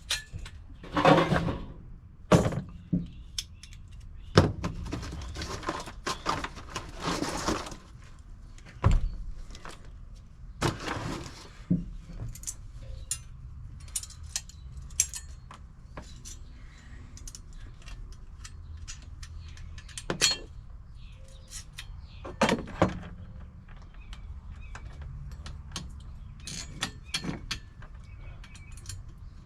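Metal parts and tools being handled: scattered clinks, knocks and rustling, irregular throughout, over a steady low hum.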